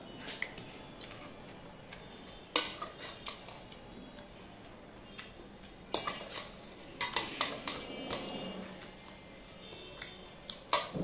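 Metal serving spoon clinking and scraping against steel pots and plates as food is served, a few sharp clinks with the loudest about two and a half seconds in, a cluster around seven seconds and another near the end.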